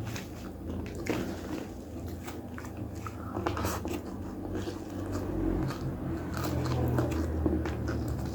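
Close-up eating sounds from a nasi padang meal: biting and chewing, with many short scattered clicks, over a low steady hum.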